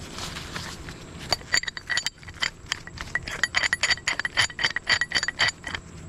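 Metal towing rigging (hook and chain or cable hardware) clinking and rattling as it is handled. A quick string of ringing metallic clinks starts about a second in.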